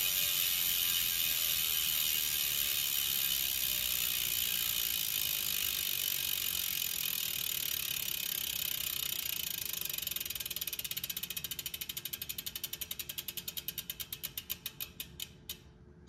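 Industry Nine 1/1 rear hub freewheeling as the spun wheel coasts: its six pawls clicking over the 90-point ratchet make a loud, high-pitched buzz. As the wheel slows, the buzz breaks into separate clicks that spread further apart and stop just before the end.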